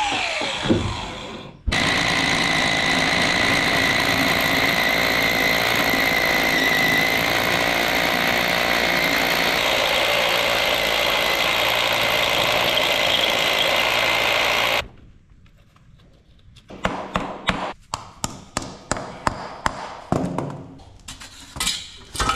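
A hammer drill bores into the concrete floor with a steady, loud hammering whine for about 13 seconds and then stops suddenly; it is drilling holes for wall plugs to bolt down a steel drain grate. Before it, in the first second, an angle grinder spins down after cutting the steel grating. After the drill stops come light, scattered clicks and knocks of handling.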